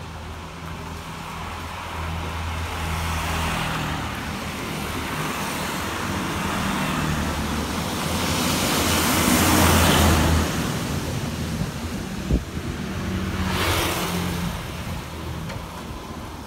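Road traffic on a wet road: a steady engine drone, with tyre hiss swelling as a vehicle passes close about nine to ten seconds in, and a second vehicle passing near the end. A single sharp click about twelve seconds in.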